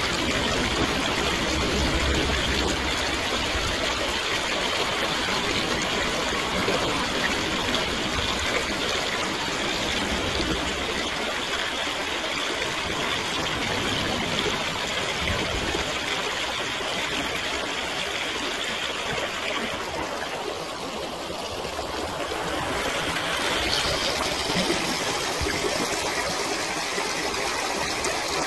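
Water flowing steadily in a stream, a continuous rushing hiss that goes quieter for a couple of seconds about three-quarters of the way through.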